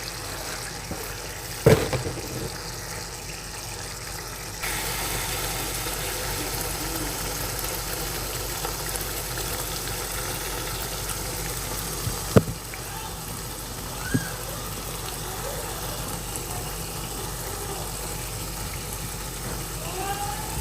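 A fan switches on about four and a half seconds in and runs with a steady whir. A few sharp knocks, like a utensil or lid on a pot, come near the start and twice later.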